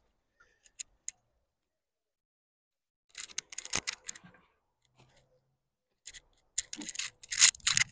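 Short scrapes and crunches of a steel shovel being handled and footsteps on dry, sandy soil, in a small cluster about three seconds in and a louder run near the end.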